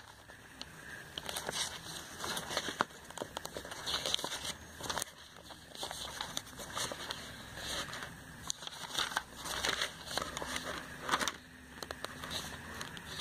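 Glossy catalogue pages being turned by hand, the paper rustling and crinkling in many short crackles that come and go.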